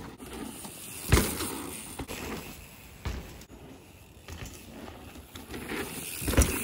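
Mountain bike riding a dirt jump track: tyres rolling on dirt, with a few sharp thumps of the bike landing, the loudest about a second in, another around three seconds in and one near the end.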